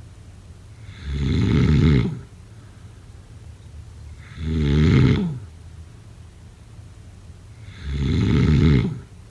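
A sleeping person snoring: three loud, rasping snores, each about a second long and falling in pitch at its end, coming roughly every three and a half seconds.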